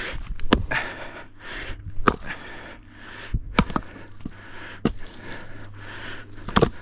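Sharp knocks about every second and a half as firewood is split by hand, with heavy breathing between the strikes and a low steady hum underneath. The wood is stringy and knotty, so it does not split cleanly.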